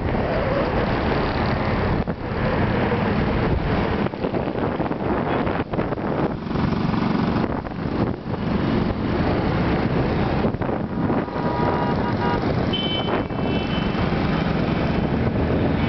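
Wind buffeting the microphone on a moving motorbike, mixed with engine and road-traffic noise, steady throughout. A short pitched tone sounds briefly about three-quarters of the way through.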